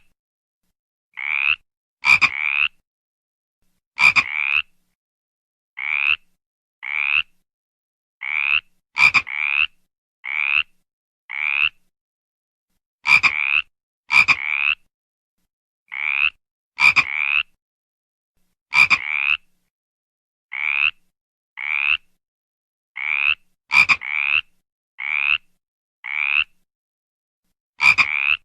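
A frog croaking over and over: short calls of about half a second, each rising slightly in pitch, coming singly or in quick pairs roughly once a second, some starting with a sharp click, with silence between them.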